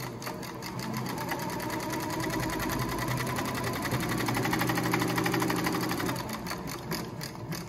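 Yamata FY-335A walking-foot cylinder-bed industrial sewing machine stitching through fabric: a rapid, even run of needle strokes that slows near the end.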